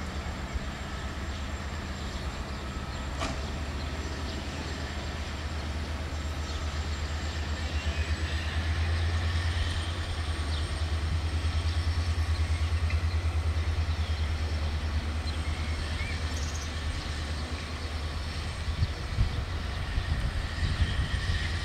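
Romanian Class 60 (LDE) diesel-electric locomotive's engine working under load as it hauls a rake of tank wagons away: a deep, pulsing rumble that grows louder about eight seconds in. A few knocks come near the end.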